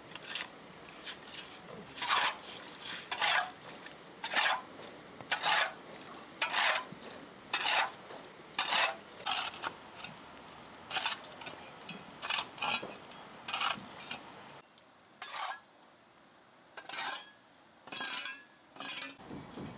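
Metal shovel blade scraping across a wet concrete slab in short, rasping strokes about once a second, spacing out toward the end.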